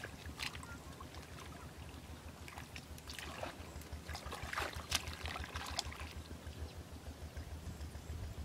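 Hands splashing and sloshing through shallow muddy water in irregular bursts, loudest about three seconds in and again around five seconds.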